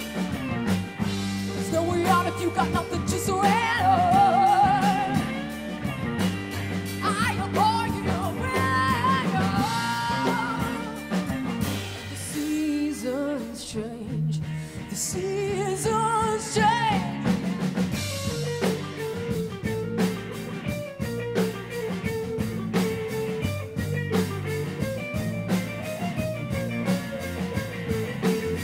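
Live rock band playing: electric guitars, electric bass and drum kit. A bending, wavering lead melody runs over roughly the first half, then the band settles into a steady repeated figure.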